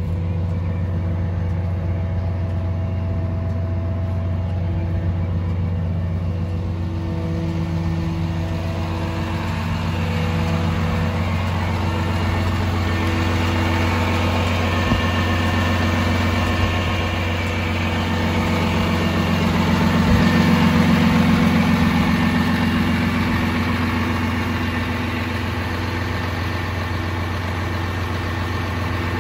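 Kenworth T270 rollback's PACCAR diesel engine idling steadily, growing somewhat louder for a few seconds about two-thirds of the way through.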